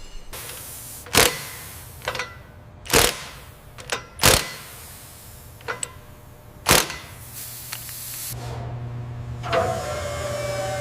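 A series of sharp, separate knocks or clanks, about seven spread over seven seconds. About eight seconds in, a steady hum starts, and a small motor whirs up near the end.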